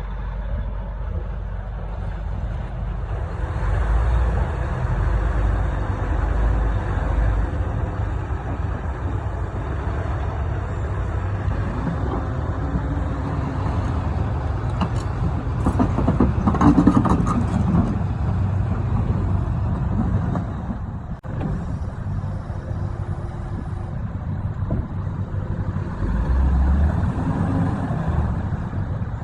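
Heavy diesel engines running steadily under load, with a louder revving surge about halfway through.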